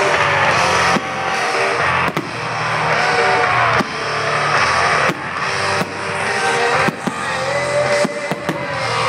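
Loud music played over a sound system, with a steady beat and melody, and several sharp firework bangs cutting through it.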